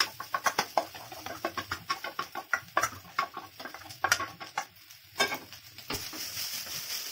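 Wooden spatula scraping and knocking cooked rice and egg out of a steel bowl into a metal kadai, a quick irregular run of clicks and scrapes. About six seconds in, a steady sizzle starts as the food is stirred in the hot kadai.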